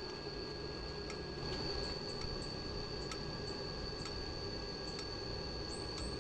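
Welding work on thin hollow iron: a steady hiss under a high, steady whine, with sharp ticks at irregular intervals, about one or two a second.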